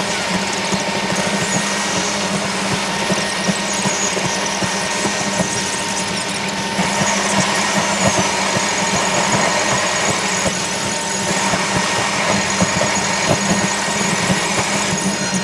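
A vehicle running steadily on the move: continuous engine and road noise with a thin, steady high whine.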